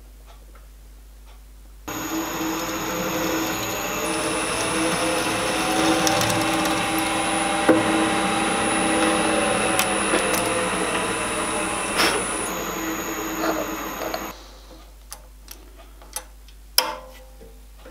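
Bench drill press running and drilling a small hole in a part clamped to an aluminium drilling jig. The motor starts about two seconds in and runs steadily for about twelve seconds before stopping, followed by a few light clicks.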